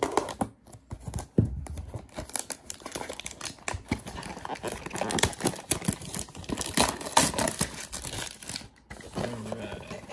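Clear plastic shrink wrap being torn and pulled off a cardboard trading-card box: a dense run of irregular crackles with a brief pause near the end.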